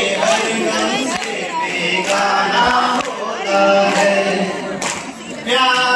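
A man singing a Hindi song into a microphone, unaccompanied, his voice carried through the hall's speakers.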